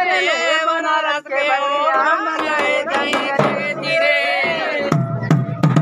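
Raut Nacha folk music: a high, wavering melody line with strong vibrato, joined near the end by a steady drum beat.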